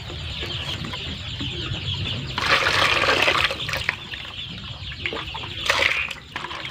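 A flock of young kampung chicks peeping continuously. A louder rushing noise lasts about a second, starting some two and a half seconds in, and a shorter one comes near six seconds.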